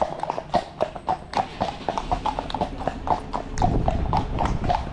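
Horses' hooves clip-clopping on a tarmac road: a steady run of sharp hoof strikes, several a second.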